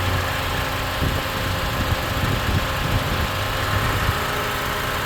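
Honda CR-V engine idling with the radiator cooling fans running and the AC compressor clutch engaged and spinning while the AC is switched off. This is the stuck-on compressor and fan fault, which is freezing the AC's cold line. A steady low hum with light irregular ticks.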